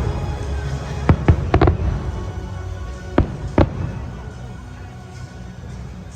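Fireworks exploding in sharp bangs: a quick cluster of four between about one and two seconds in, then two more a little after three seconds. Music plays underneath and grows quieter toward the end.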